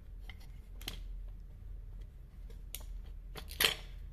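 Light metal clicks and scrapes of a pin spanner working the flange nut of an angle grinder to loosen its grinding disc, with a louder scrape about three and a half seconds in.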